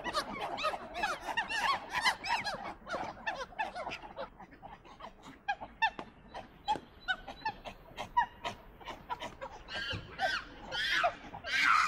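A group of monkeys calling: many short, high, overlapping chirping calls, busiest in the first few seconds and then thinning out. Near the end come louder, longer calls that rise and fall in pitch.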